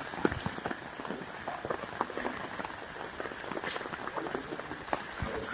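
Steady light rain falling on wet pavement and leaves, with many irregular drops tapping and dripping, and footsteps on the wet ground.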